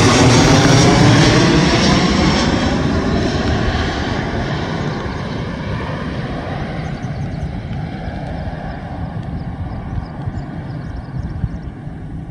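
Jet engine noise from a Boeing 737 airliner on landing approach with gear down, passing close overhead and then fading steadily as it flies away. The sound's tone sweeps downward in the first few seconds as the aircraft passes.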